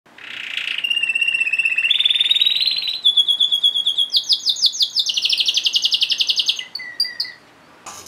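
Domestic canary singing: a string of rapid trills and rolls, each held at one steady pitch for about a second before jumping to a new one, fading out about seven seconds in.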